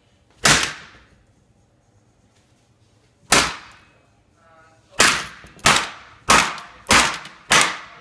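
Seven sharp, loud whacks, each ringing briefly: one about half a second in, one a little past three seconds, then five in quick succession about 0.6 s apart near the end.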